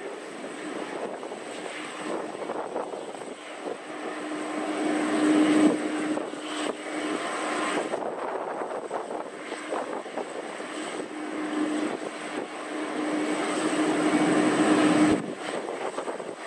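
Airbus A330 airliner's turbofan engines running at taxi power: a steady jet rumble with a thin, high whine over it. It swells louder twice and drops back each time.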